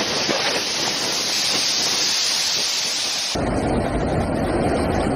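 Storm waves breaking over a seawall, a steady hissing roar of surf and spray. About three seconds in it cuts abruptly to storm wind buffeting the microphone with a low rumble.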